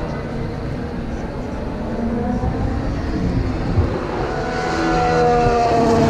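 Formula 1 car's 1.6-litre V6 turbo-hybrid engine running at speed on the circuit. The engine note grows louder and rises slightly in pitch from about four seconds in as a car approaches.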